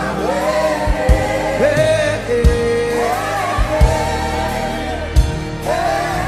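Gospel worship song: voices singing long, sliding melodic lines over a band, with a low drum beat about every second and a half.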